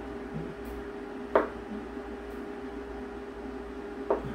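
A kitchen knife cutting through tofu and tapping the cutting board twice, about a second in and near the end, over a steady electrical hum.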